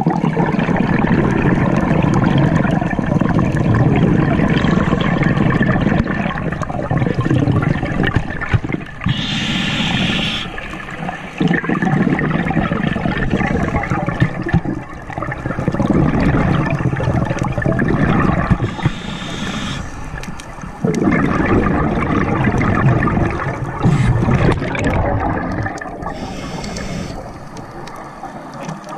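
Scuba diver breathing underwater through a regulator, heard through a camera housing. Long rushes of bubbling exhaled air are broken about every nine seconds by a short, higher hiss as the diver inhales.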